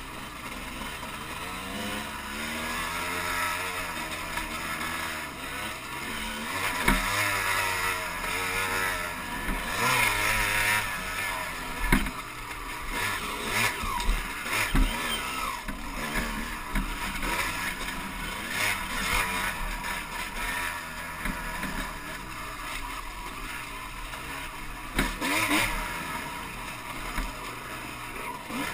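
Dirt bike engine revving up and down as it is ridden over a rough, rocky trail, picked up by a camera mounted on the bike. Several sharp knocks from the bike striking bumps and rocks, the loudest about twelve seconds in.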